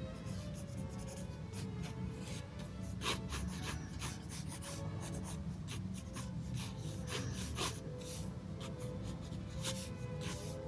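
An ink pen scratching across sketchbook paper in many short, irregular strokes as a drawing is inked, with soft background music underneath.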